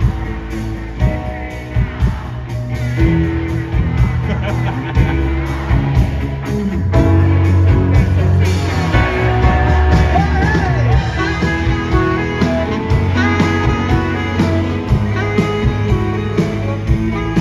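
Live rock band playing an instrumental passage: drums keep a steady beat under bass and electric guitar, with a lead line bending in pitch about ten seconds in.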